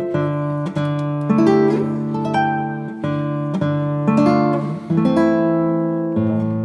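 Background music of plucked acoustic guitar, with new notes and chords struck every half second or so.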